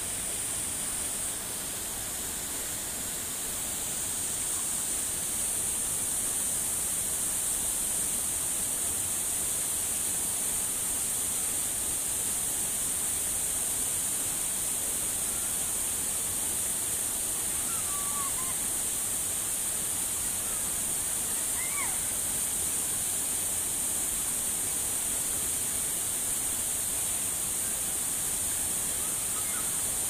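Steady rush of a waterfall and its river pouring over rocks, an even roar of water that grows slightly louder a few seconds in. A few faint short chirps rise briefly above it near the middle.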